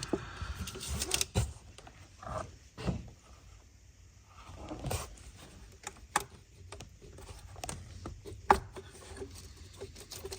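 Scattered light clicks, knocks and rubbing of hands and tools working on parts in a car's engine bay. The sharpest knocks come about five, six and eight and a half seconds in.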